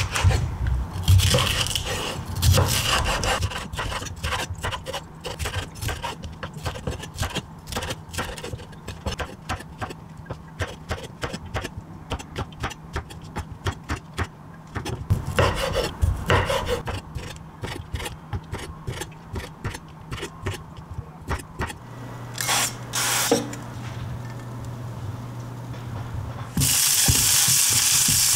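Kitchen knife chopping bell peppers and button mushrooms on a wooden cutting board: a long series of knocks, at times in quick runs. Near the end the diced peppers drop into a hot pan and start sizzling, a sudden steady hiss.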